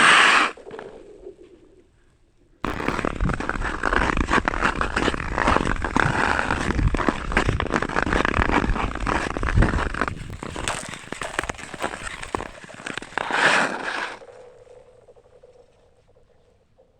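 Ice skates scraping and gliding over thin black ice, with a dense crackling full of sharp clicks, starting about two and a half seconds in and fading out near the end. A short loud burst at the very start.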